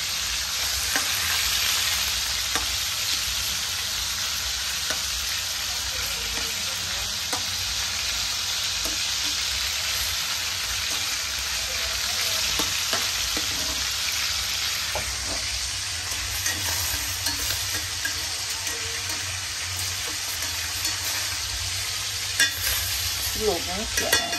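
Marinated pork leg slices sizzling steadily as they fry in hot oil in a frying pan, with metal tongs clicking against the pan now and then as the pieces are turned. A few sharper clicks of the tongs on metal come near the end.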